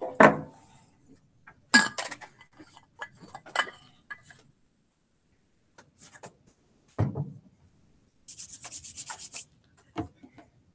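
Handling noise at a desk: scattered knocks, clunks and clatter as objects are moved about, then a rapid rasping rub of about ten strokes a second that lasts about a second, near the end.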